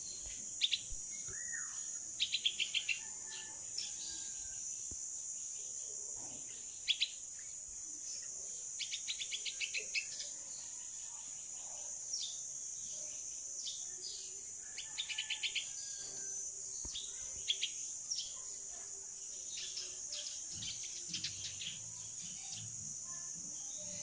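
Bulbul fledgling calling in short bursts of rapid, high chirps every few seconds, begging for its parent. A steady high-pitched drone of insects runs underneath.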